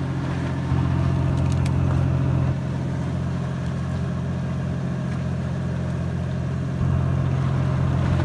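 Steady low hum of the fishing boat's engine running, growing louder for a couple of seconds about a second in and again near the end.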